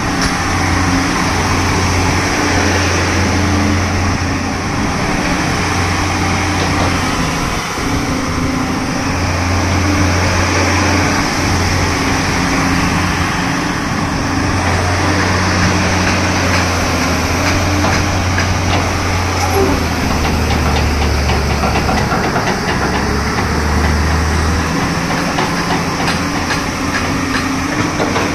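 Tata Hitachi crawler excavator's diesel engine running steadily at idle, a low even hum with a rattling, noisy edge. Its pitch drops lower about two-thirds of the way through.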